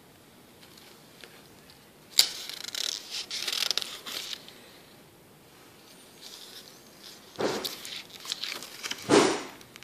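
Paper pages of a spiral-bound booklet being turned by hand, rustling in two bursts, about two seconds in and again about seven seconds in. Each turn has a sharp flap of the page, the loudest near the end.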